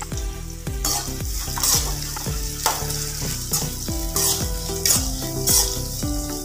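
Chopped onions and curry leaves sizzling in hot oil in a non-stick kadai as they are stirred, with about six scraping strokes of the spatula across the pan roughly a second apart.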